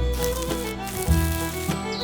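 Background music with held notes, a strong bass line and a steady beat.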